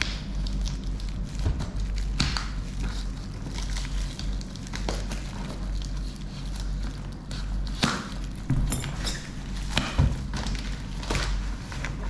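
Packaging and a small plastic device being handled: scattered irregular clicks and crinkles over a steady low electrical hum.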